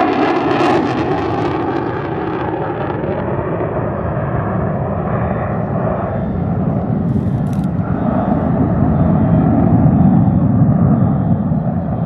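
F-35A Lightning II's single F135 turbofan jet engine, a steady loud roar from a passing fighter. A ragged, crackling high edge dies away in the first few seconds, and the low rumble swells again toward the end.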